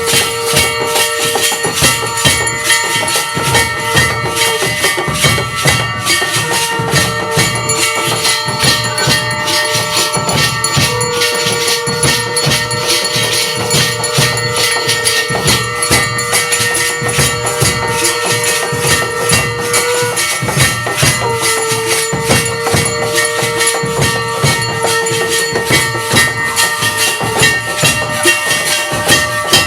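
Aarti accompaniment: fast, continuous clanging of bells and cymbals with drumming, over long held tones that break off every few seconds.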